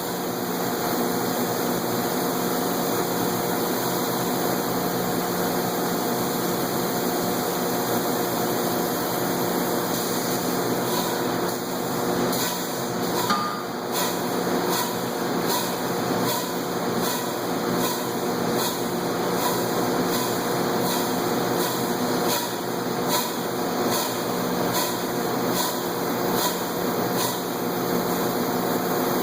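Industrial machinery of a Chambersburg forging hammer installation running steadily, with a held multi-tone hum. About a third of the way in, a light regular ticking about once a second joins it.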